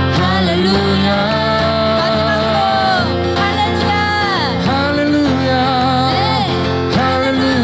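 Live worship music: a voice singing a melody over steady sustained chords.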